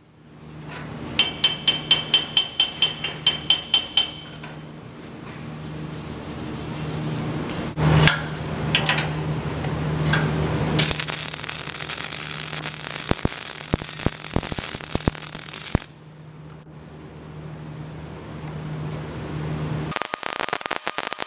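About a dozen quick hammer blows on metal, ringing, at roughly four a second. Then MIG welding on the cast iron anvil: an even, crackling hiss for about five seconds, starting again near the end, over a steady low hum.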